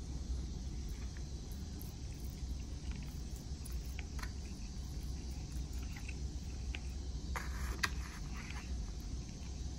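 Metal fork picking through shredded chicken and rice on a plastic plate: scattered light clicks and scrapes, the sharpest about eight seconds in, over a steady low background hum.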